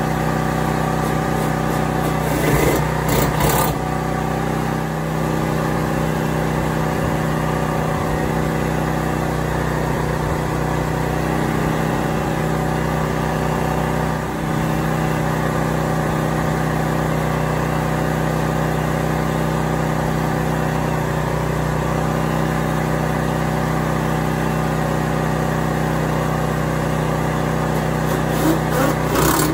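Portable engine generator running steadily at a constant pitch. Short bursts of knocking come about three seconds in and again near the end.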